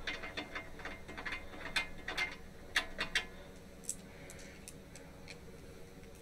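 Irregular light clicks and taps, a quick cluster in the first three seconds and a few scattered ones later, over a faint steady hum.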